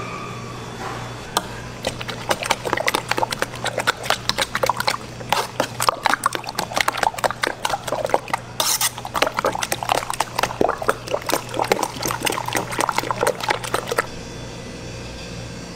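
Beaten egg mixture full of chopped fillings being stirred in a stainless steel pan: quick, dense wet sloshing and splashing that starts about a second and a half in and stops suddenly near the end.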